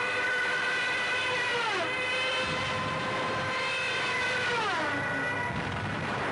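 Diving Junkers Ju 87 Stuka dive-bomber, a steady high-pitched whine that drops sharply in pitch twice, about two and five seconds in, heard on an old newsreel soundtrack.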